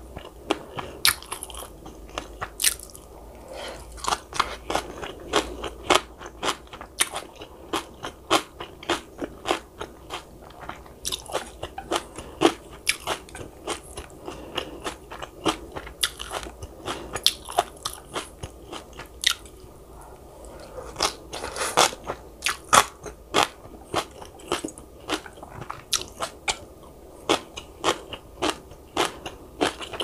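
Close-miked eating sounds: a person biting and chewing crunchy food. The crunches come in quick runs of a few a second, broken by short pauses.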